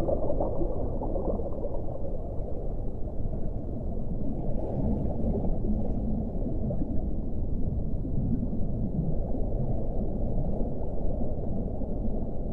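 Muffled underwater ocean ambience: a dense, deep rumble and gurgle of water, with nothing bright above it.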